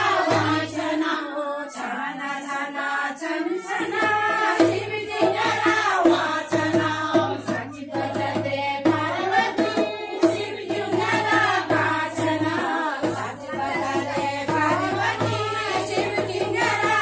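Kumaoni jhoda-chachri folk song sung in chorus, with drum beats keeping time.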